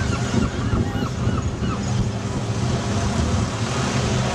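Wind buffeting the microphone with a steady low rumble, and a quick run of short high calls in the first two seconds.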